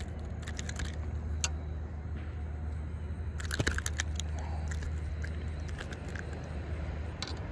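A freshly landed small largemouth bass flopping on grass and being handled, heard as short rustles and clicks, with a cluster of louder clicks about halfway through. A steady low rumble runs underneath.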